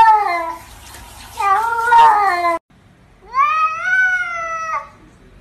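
Domestic cat meowing: two meows about a second apart, then a longer meow that rises in pitch, holds, and drops off at the end.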